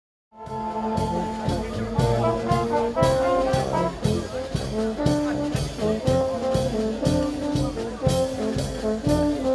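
A small brass band with tuba and trumpets playing a lively tune, held notes over a steady beat of about two strokes a second.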